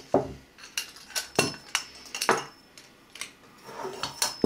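Metal clinks and taps as a Sankey S-type keg spear is taken apart by hand: its stainless steel shaft, springs and valve parts knocking against each other. About half a dozen sharp knocks, a few with a short bright ring.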